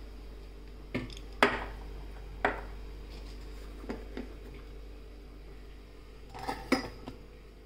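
Stainless steel bowls and a spoon clinking: a handful of separate sharp clinks, loudest about a second and a half in and twice near the end, over a steady low hum.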